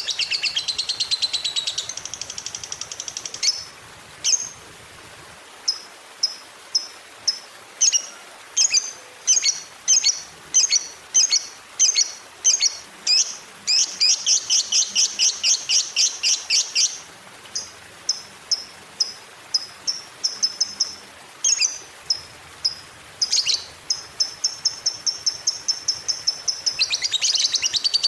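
Lovebird calling, high and shrill: rapid chattering trills (the long 'ngekek') alternate with runs of single sharp chirps a little under a second apart. The trills come at the start, in the middle and again near the end.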